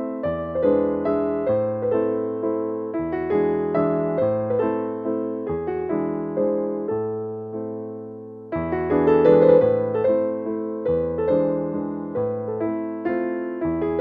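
Background piano music: a gentle melody of decaying notes over slow-changing bass notes, with a brief lull about eight seconds in before the next phrase comes in louder.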